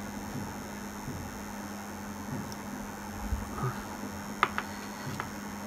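Steady low hum and faint hiss, with a few light clicks near the end as small electrolytic capacitors are handled and set down on the bench.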